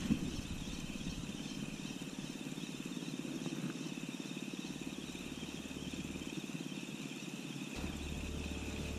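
Shimano Stradic 1000 HG spinning reel being cranked on a steady retrieve: an even, fast whirring from the gears that keeps up throughout.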